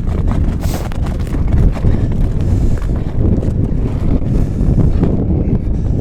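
Strong wind buffeting the microphone with a heavy low rumble, over irregular crunching steps on the lake ice.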